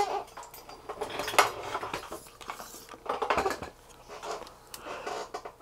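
Small hard clicks and taps as the split halves of a ground-down mica capacitor and a metal tool are handled on a wooden workbench. The taps are scattered, with a sharper one about a second and a half in and a quick cluster around three seconds in.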